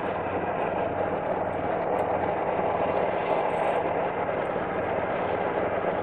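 Dodge Viper's V10 engine and tyres on the road while cruising, a steady low drone and road roar heard from inside the cabin.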